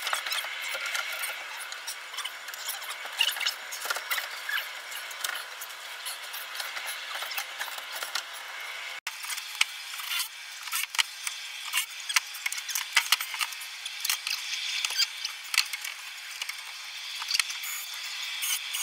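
Fast-forwarded sound of hand framing work on a wooden stud wall: a rapid, high-pitched jumble of clicks, knocks and scraping, sped up so that nothing low is left. About nine seconds in it drops out for a moment as one sped-up clip cuts to the next.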